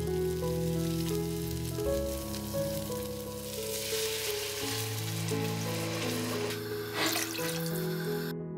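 Hokkaido pumpkin pieces and onion frying in a stainless steel pot. About three seconds in, water is poured over them with a rushing hiss, and there is a short burst near the end. Soft background music with held notes plays throughout.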